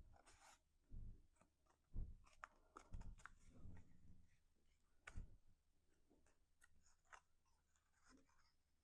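Quiet handling of cardstock pieces on a work surface: soft paper rustles and light clicks, with a few dull taps in the first half as pieces are pressed down.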